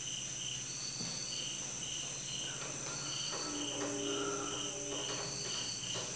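Insects chirping in a steady rhythm, about three high chirps a second, with longer chirps every couple of seconds.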